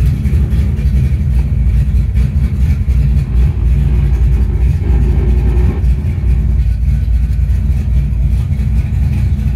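1969 Dodge Super Bee's 440 Six Pack V8 running steadily with a deep, even rumble, heard from inside the cabin.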